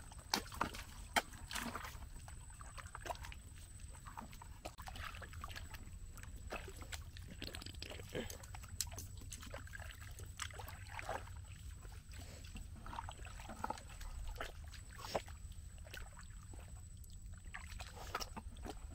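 Boots squelching in wet tidal mud and a metal crab hook probing a crab hole, with scattered short clicks and knocks.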